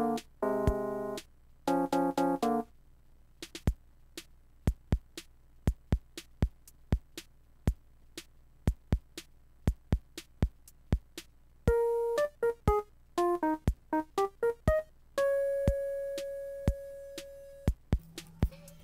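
Background music: keyboard chords over a drum-machine beat. The beat carries on alone for several seconds in the middle, then a run of short keyboard notes and one held note come in near the end.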